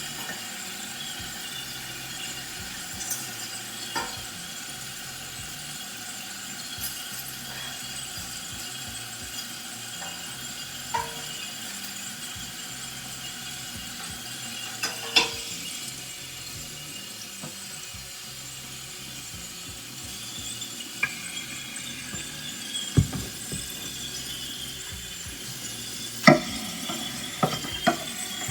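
Kitchen utensils clinking against cookware every few seconds, some strikes ringing briefly, with a cluster of clinks near the end, over a steady low hiss.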